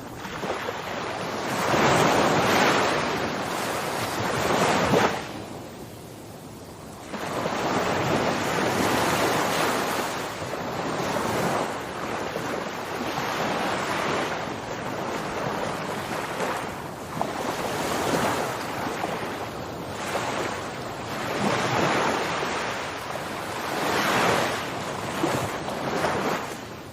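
Rushing water noise, swelling and easing every few seconds. It drops away suddenly about five seconds in and returns about two seconds later.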